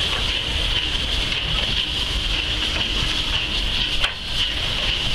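DR class 03 steam locomotive rolling slowly past, steam hissing steadily from around its cylinders over a low rumble. A single sharp click sounds about four seconds in.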